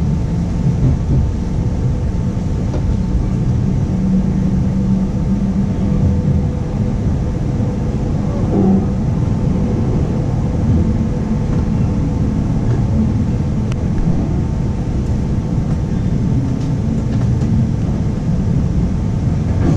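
Running noise inside a 25T passenger coach: a steady low rumble of wheels on the rails, with a faint steady hum above it.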